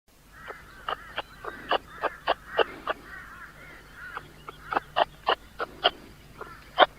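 An animal's short, sharp calls repeated about three times a second, with a pause about three seconds in, over a faint background chatter.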